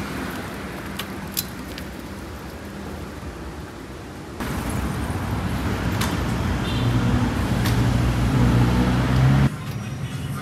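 City street traffic noise, with a steady hum of road vehicles. It gets louder about four seconds in, with a low engine drone, then cuts off suddenly near the end.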